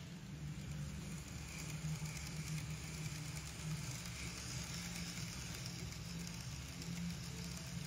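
N-gauge model electric train running along its track: a steady low motor hum under a hiss of wheels on rail. The hiss grows louder from about a second and a half in until about five seconds in, as the train passes close.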